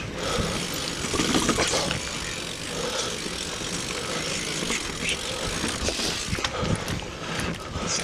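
Single-speed mountain bike being ridden over a dirt trail: steady tyre and riding noise with scattered short knocks and rattles from the bike.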